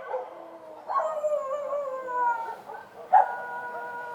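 Street dogs howling, with short bark-like onsets about a second in and again just after three seconds, each drawn out into long, held, wavering howls.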